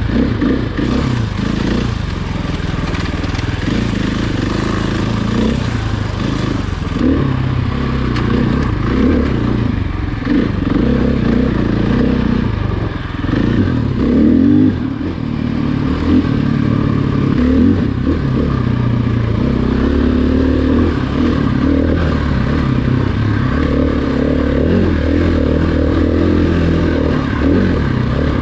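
Off-road vehicle engine running under constantly changing throttle, its pitch rising and falling.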